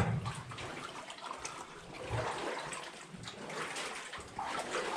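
Deep water sloshing and swirling as a person wades through a flooded mine tunnel, with uneven swells, the louder ones about two seconds in and near the end.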